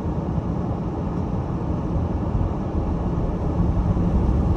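Steady low rumble of an all-wheel-drive car on snow tyres driving through snow, with road and engine noise heard from inside the car. It gets a little louder near the end.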